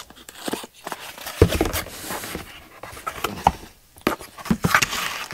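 A cardboard shipping box being cut open and its flaps pulled back: irregular rustling and scraping of cardboard and tape, with a few sharp knocks.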